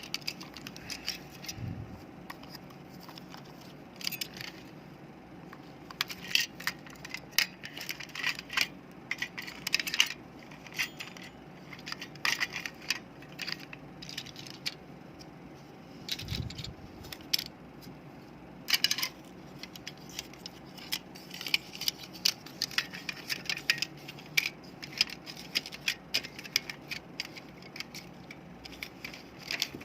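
Small plastic parts of an air-conditioner remote control being handled, with irregular sharp clicks and light rattles as the casing pieces are fitted and snapped together, and one dull thump partway through.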